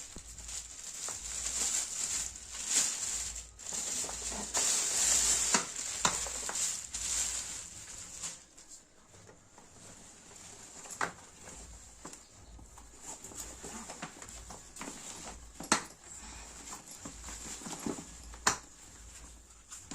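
Handling noise of a fabric travel duffel bag: rustling for several seconds, then quieter handling with a few sharp clicks or knocks.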